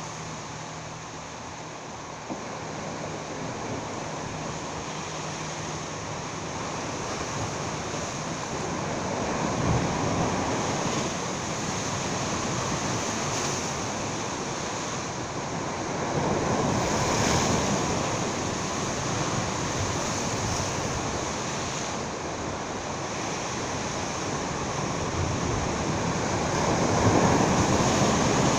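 Sea waves surging and washing against the rocks of a breakwater, building up and falling back about three times, with some wind on the microphone.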